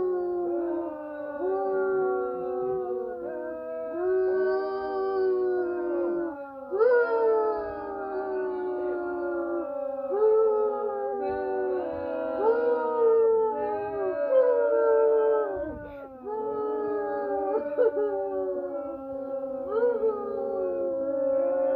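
Crowd booing: several voices hold long, overlapping 'boo's that slide down in pitch, with new ones starting every second or two.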